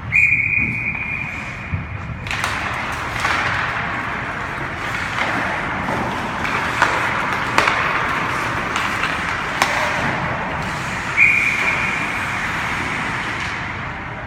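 Hockey game sound: a long, steady whistle blast at the start and another about 11 seconds in, with a continuous noisy rink background and several sharp knocks between them.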